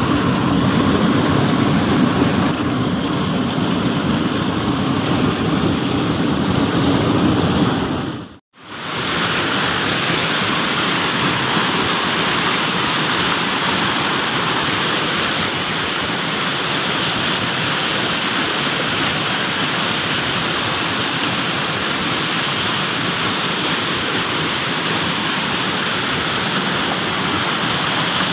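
Stream water rushing over rocks, a loud steady rush. It cuts out for a moment about eight seconds in, then carries on.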